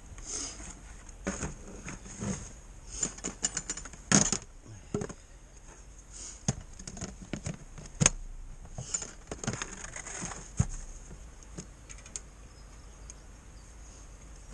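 Fishing tackle being handled and unloaded from a car boot: scattered knocks, clicks and rustling, with the sharpest knocks about four and about eight seconds in.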